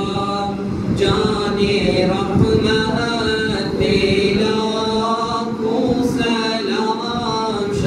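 Unaccompanied male voices chanting a devotional Islamic song in long, melodic held phrases, with no instruments.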